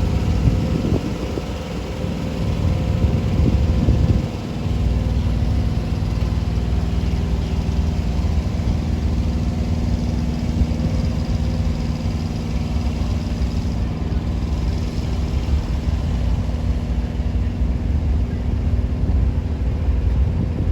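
Semi-truck diesel engine idling steadily, a constant low hum. For about the first four seconds it is mixed with a louder, uneven low rumble.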